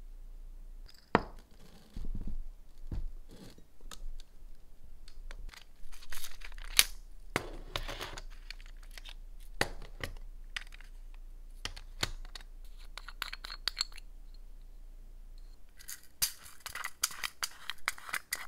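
Small clicks, taps and short scratching noises of nail tools and supplies being handled at close range, with a quicker run of scratchy strokes near the end.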